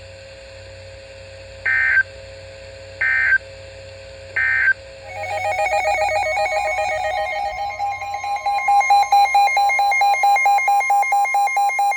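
Emergency Alert System SAME header: three short, identical bursts of data tones about a second and a half apart. About five seconds in, a loud, pulsing two-tone alert signal begins, beeping a few times a second, announcing a new warning.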